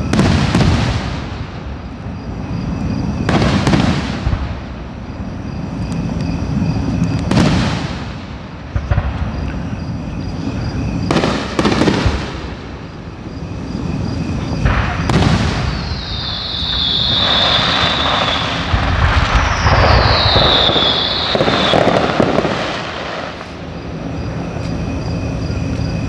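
Aerial firework shells bursting, one loud boom about every four seconds, each followed by a rolling echo. Partway through come two falling whistles over a stretch of crackling.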